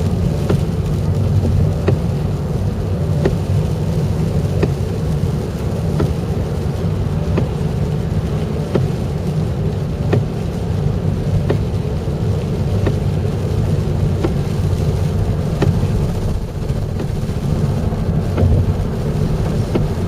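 Steady low road and engine rumble of a moving car heard from inside, with a faint tick about every second and a half.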